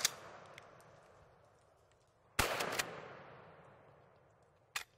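A shotgun fires about two and a half seconds in, and the report echoes and dies away over about two seconds. At the start, the echo of a shot just before is still fading.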